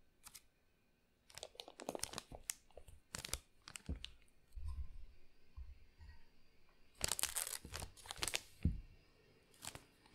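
Thin plastic piping bag crinkling and rustling as a silicone spatula scrapes thick pumpkin cream out of a saucepan and pushes it into the bag. It comes in two bursts of crackly rustling, with a few soft low thuds between.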